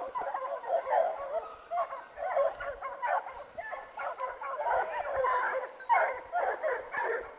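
A pack of hunting hounds giving tongue together: many overlapping yelps and bays, with no let-up. This is the sound of running hounds on the trail of a wild boar during a drive.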